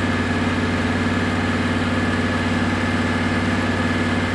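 Engine-driven welder idling: a steady engine drone with a thin, constant high whine above it.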